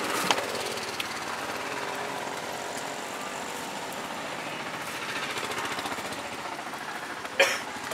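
Steady background noise of a roadside food stall, with a couple of light clicks early on and a short, loud clatter near the end.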